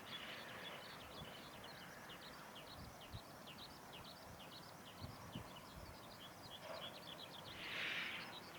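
Quiet outdoor ambience by rice fields: a dense, irregular stream of short high-pitched chirps, with a brief swell of hiss near the end.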